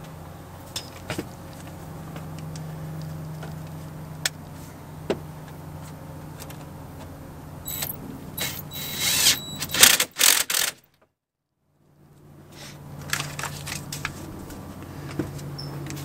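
Ford 5.4-litre three-valve Triton V8 idling with a steady low hum, with scattered clicks of parts being handled. A loud burst of rattling and clicking comes about eight to ten seconds in, then all sound cuts out for about a second before the idle returns.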